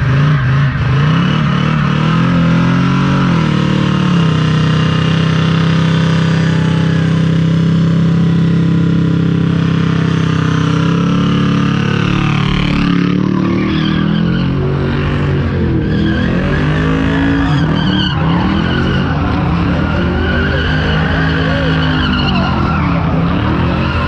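A car doing a burnout: the engine held at high revs with the rear tires spinning and squealing on the pavement, then from about halfway through the revs rising and falling again and again.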